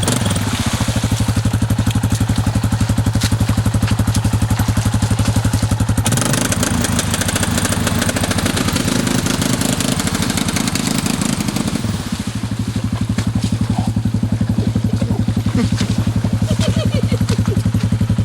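ATV engine running steadily with an even pulsing note. About a third of the way in its sound turns rougher and noisier for several seconds, then settles back to the steady pulse.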